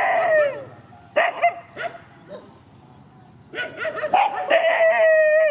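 Dogs barking and yelping at each other. A high cry trails off at the start, a few short barks follow about a second in, and from about three and a half seconds on there is a longer run of high-pitched yelps ending in a held whine.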